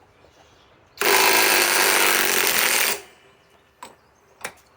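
Flex FX1451 mid-torque cordless impact wrench hammering in reverse on speed 3 for about two seconds to break loose a large nut.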